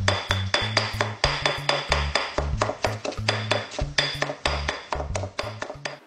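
Stone pestle pounding in a stone mortar: quick, even strikes, about four to five a second, over background music with a bass line. The strikes stop just before the end.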